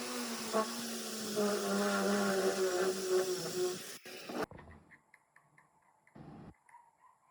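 A small electric power-tool motor running with a steady whine and hiss, dropping slightly in pitch as if under load, then cutting off abruptly about four and a half seconds in. A short faint knock follows near the end.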